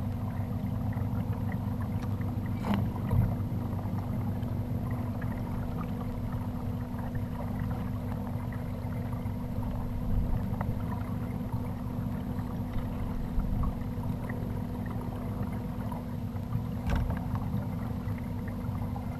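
Kayak moving on the water: a steady low rumble of water and wind noise, with a few light knocks about three, ten and seventeen seconds in.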